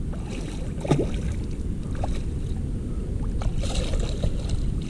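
A hooked bass splashing and thrashing at the water's surface beside a boat as it is grabbed by hand, the splashing strongest near the end, with a few sharp slaps or clicks before it over a steady low rumble.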